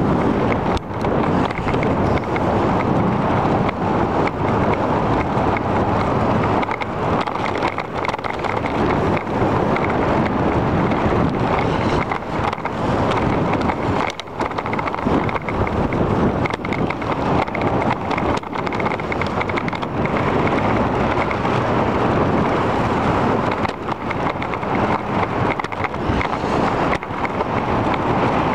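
Steady, loud wind noise on the microphone of a camera riding on a moving bicycle.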